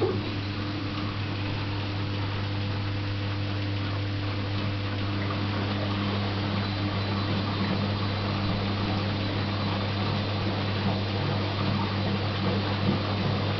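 Bosch WLG 24160 washing machine starting up and running: a steady low hum that comes on suddenly, with a noisy mechanical wash above it, growing slightly louder as it goes.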